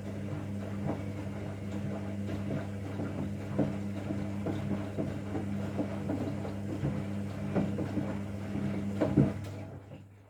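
Washing machine running: a steady motor hum with many irregular knocks and clicks from the drum, dying away near the end.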